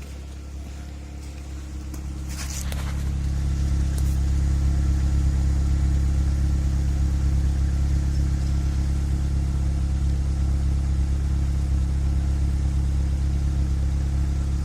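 Nissan Primera P10's four-cylinder engine idling steadily on LPG just after a timing chain replacement, growing louder over the first few seconds and then holding even.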